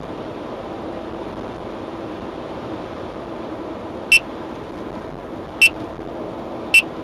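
Steady road and engine noise inside a car at highway speed, with a radar detector sounding three short, sharp high beeps starting about four seconds in. These are the Uniden R7 beginning to alert on K-band radar from a Redflex camera van.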